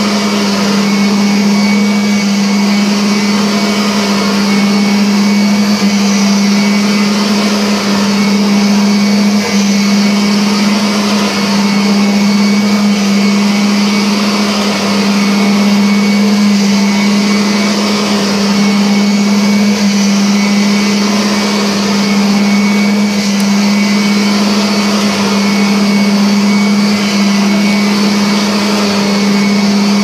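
Upright vacuum cleaner running steadily while pushed back and forth over carpet: a strong, even motor hum under a constant hiss of rushing air.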